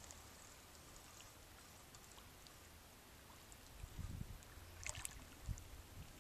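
Quiet lakeshore ambience: a faint steady hiss with a few light ticks. About four seconds in, an uneven low rumble sets in, with a couple of sharp clicks.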